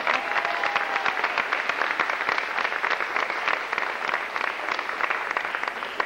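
Audience applauding, many hands clapping together in a steady, dense run.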